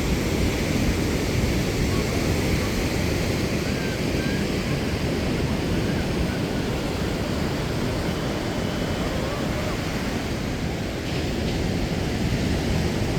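Ocean surf and wind buffeting the microphone, a steady rushing noise with no breaks.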